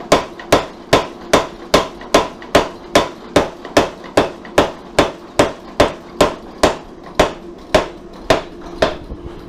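Power hammer forging a red-hot forge-welded San Mai billet between its dies, drawing it out: about two and a half steel-on-steel blows a second over the machine's steady hum, stopping shortly before the end.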